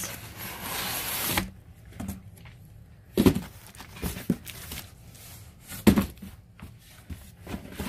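Cardboard boxes being handled: a rustling, scraping stretch for about the first second and a half, then scattered knocks as boxes are set down. The loudest knocks come about three and six seconds in.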